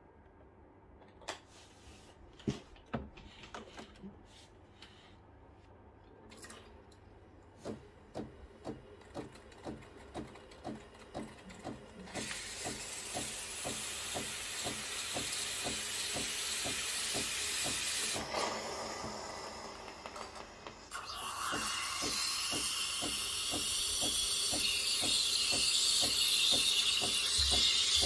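Breville Barista Pro's steam system working: the pump pulses in a steady rhythm of about two a second, and about twelve seconds in the steam wand starts hissing loudly, fading briefly and then coming back stronger.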